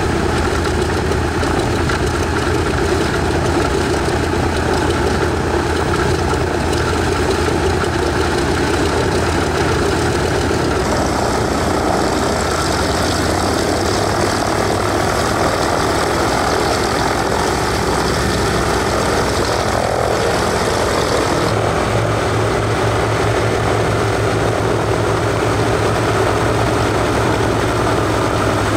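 The two Pratt & Whitney R-1830-92 fourteen-cylinder radial engines of a Consolidated PBY-5A Catalina, running steadily at idle with propellers turning. The tone shifts abruptly about eleven seconds in and again about twenty-one seconds in.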